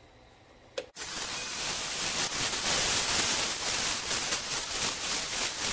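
Sandpaper held against a persimmon wood handle spinning on a wood lathe: a loud, steady rough hiss that starts abruptly about a second in.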